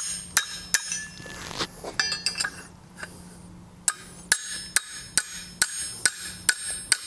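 Light hammer taps on the cold metal roasting fork, each a short ringing metallic clink. A few come in the first second and a quick cluster about two seconds in. After a pause they run on evenly, about two to three taps a second.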